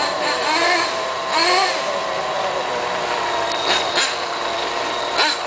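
Several radio-controlled model cars' small engines running together at the starting line with a steady high buzz, with a couple of sharper bursts near the end.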